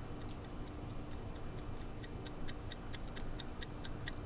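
Wall clock ticking in a quiet room: a run of sharp little ticks that come clearer and quicker in the second half, over a faint steady hum.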